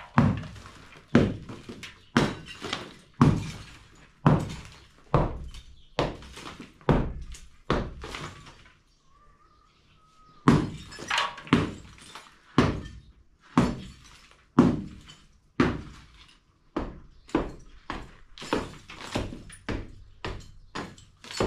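Hammer blows striking a masonry wall to break it open, a steady run of sharp knocks about one a second. The blows pause for about two seconds just before halfway and come a little faster near the end.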